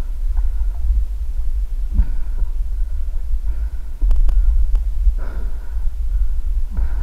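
Muffled, throbbing low rumble of a camera being carried while wading through a muddy water pit, with a few sharp knocks about two seconds in and again around four to five seconds in.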